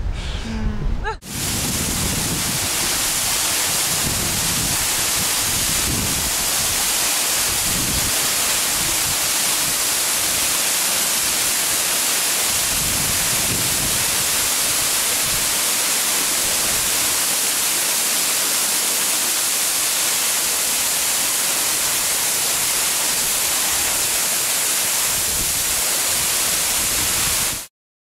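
Waterfall pouring into a pool: a steady rush of falling water that starts about a second in and cuts off abruptly near the end.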